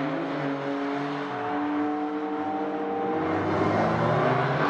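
Historic racing car engines running at speed on the circuit, the engine note holding fairly steady and then rising in pitch and growing louder over the last second or so as a car accelerates.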